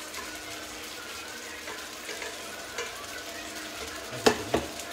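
Fish stew sizzling in a frying pan, with faint small clinks, then two sharp metal clanks about four seconds in as a stainless steel pot is set down on the glass-ceramic cooktop.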